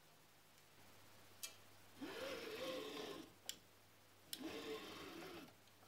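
Faint whirring of the Anet E10 3D printer's Y-axis moved by hand: the build plate's metal bearings running along round steel bars and the toothed belt turning over its pulley, in two passes of about a second each, with pitch rising and falling as the plate speeds up and slows. Light clicks come before and between the passes.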